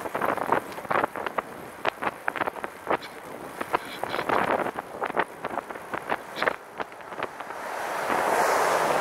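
Wind rushing over the microphone of a camera mounted on a moving recumbent trike, with rapid irregular crackles and ticks throughout. A louder rush builds near the end.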